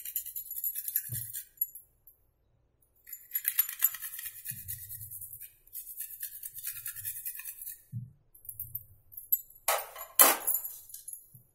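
Chocolate being grated on a small stainless-steel hand grater: runs of quick, fine rasping strokes with short pauses between them, then two louder handling noises near the end.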